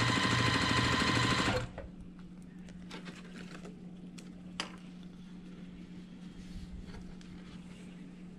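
Electric sewing machine stitching fabric at a steady speed, then stopping abruptly about a second and a half in. After that a low steady hum remains, with a few small clicks and a sharp snip of scissors cutting the chain-pieced units apart.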